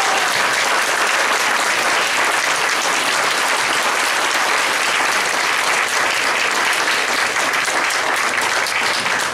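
Audience applauding, a dense, steady clapping at full strength throughout.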